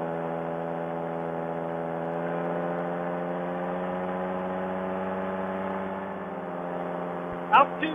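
Fresh Breeze Monster paramotor's two-stroke engine and propeller running steadily at high power in flight, easing slightly in pitch and level about six seconds in. It runs on a newly fitted 155 main jet that gives it more RPM.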